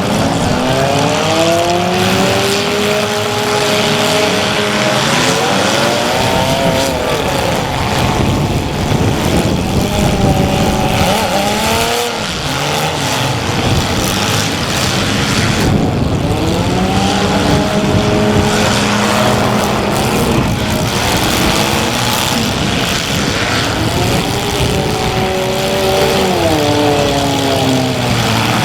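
Several compact cars' engines running at once, revving up and falling back again and again under a steady loud din.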